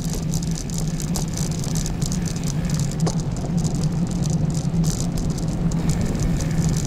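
Bicycle rolling along the path: a steady low rumble with constant rattling and clicking from the bike.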